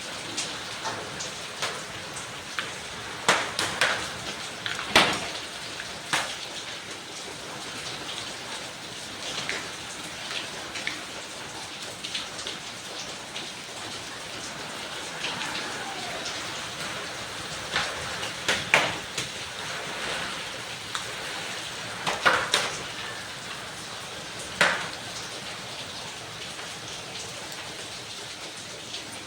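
Heavy rain falling steadily, with sharp single pops and clicks every few seconds.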